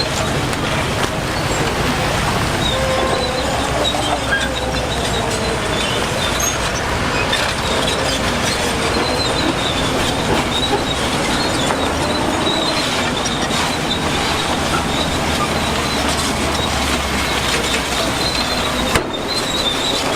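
Crawler bulldozer working steadily, its diesel engine running under a continuous metallic squeal from the steel tracks, with a brief break about a second before the end.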